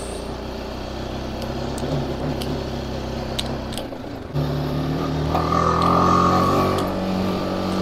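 Motorcycle engine running steadily, heard from on board, while riding up a rough gravel track, with a few brief knocks. About four seconds in the engine sound changes and grows louder, and a higher steady tone joins for about a second and a half.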